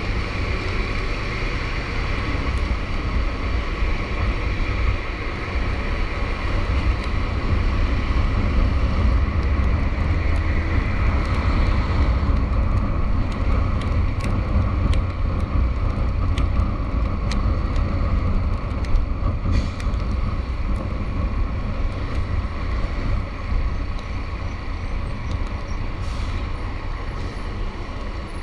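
Road traffic: a heavy vehicle's deep, steady engine rumble, with scattered sharp ticks and rattles for several seconds in the middle.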